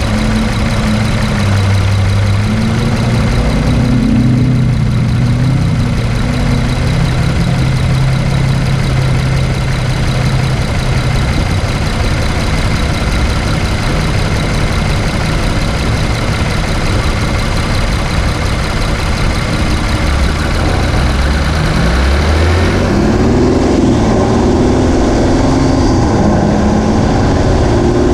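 Engine and road noise of a 2017 Infiniti Q50's VR30 3.0-litre twin-turbo V6 on the move, a steady drone whose low engine note shifts up and down. About 23 s in, the high hiss falls away and a lower rumble comes up.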